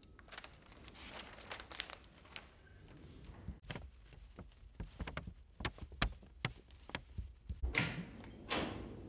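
Newspaper pages rustling, with scattered light clicks and knocks, then a louder rush near the end as a wooden double door is unlatched and opened.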